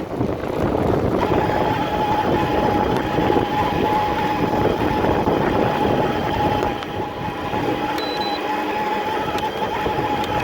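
Shimano E8000 mid-drive e-bike motor whining steadily while assisting, a single high whine that comes in about a second in, over rolling tyre and wind noise.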